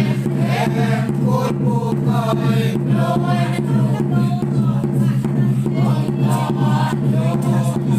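A small church congregation singing a Christmas hymn together, with a regular beat running underneath.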